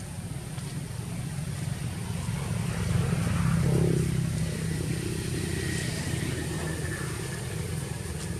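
A motor vehicle's engine passing by: the sound swells to its loudest about three to four seconds in, its pitch falling as it passes, then eases off.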